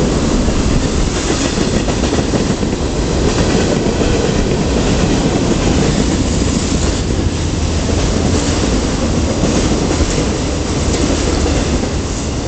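Freight cars of a Providence and Worcester train rolling steadily past. It is a continuous rumble and clatter of steel wheels on the rails.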